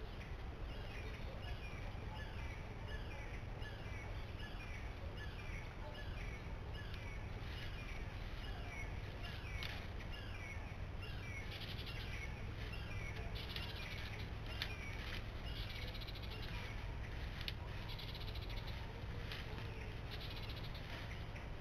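Birds calling in woodland: a short call note repeated about one and a half times a second, with scratchy, harsher calls in the second half, over a steady low background noise.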